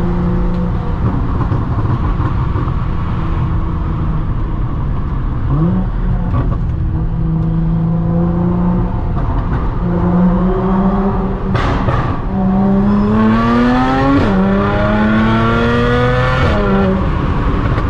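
Supercharged Audi S4's engine under way: a steady cruising note with small changes in revs. About twelve seconds in it accelerates, the pitch climbing, dropping back at a gear change, climbing again, then falling away near the end.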